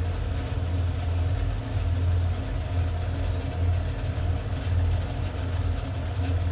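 A steady low rumbling hum with a faint even hiss above it, beside a large pot of tomato masala bubbling in oil on the stove.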